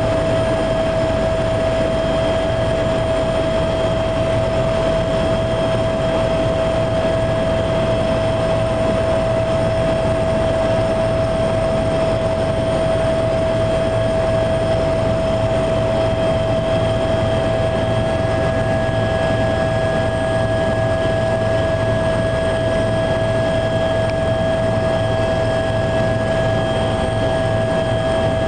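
Helicopter in cruising flight heard from inside the passenger cabin: a loud, unbroken engine and rotor drone with a constant whine over a low hum.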